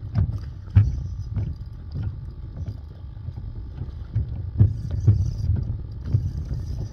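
Small waves slapping against the hull of a flat-bottomed mud boat, a string of irregular low knocks and splashes about every half second to a second.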